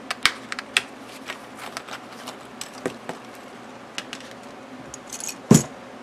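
Small plastic discbound discs clicking and tapping as they are handled and set down one by one on a wooden tabletop, with a louder knock about five and a half seconds in.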